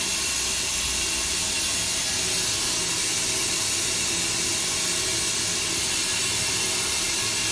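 Water running non-stop with a loud, steady hiss, the sound of water flowing continuously when it should not be running at all.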